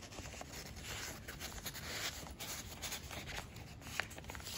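Paper and fabric pages of a handmade junk journal rustling and rubbing under the hands as they are handled, with a few light clicks, one about four seconds in.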